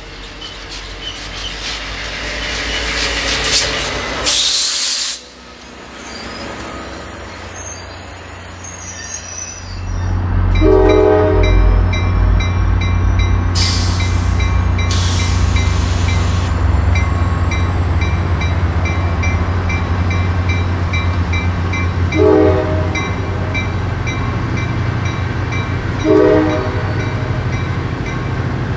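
Diesel-hauled Coaster commuter train at a station platform: the train approaches and then rolls slowly past with a steady low engine drone. A bell dings rapidly over it, with a few short tones and two brief hisses of air.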